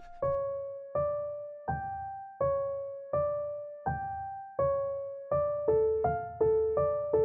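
Background music: a slow piano melody of single struck notes, each fading away, about one every three-quarters of a second. Near the end a second, lower line of notes joins in between them, so the notes come twice as often.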